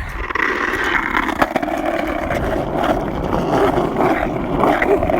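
Skateboard wheels rolling on asphalt: a steady rolling noise with a few faint clicks.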